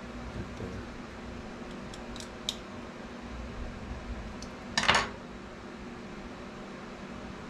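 Small metal parts of a handmade tattoo machine clicking and clinking as its front spring is adjusted by hand: a few light ticks, then one louder rattle of clicks about five seconds in.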